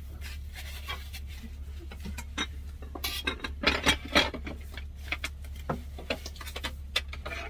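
Kitchen handling sounds: light clicks and knocks, then a cluster of louder clatters about three to four seconds in as a small crock pot with its lid on is picked up and set down on the counter. A low steady hum runs underneath.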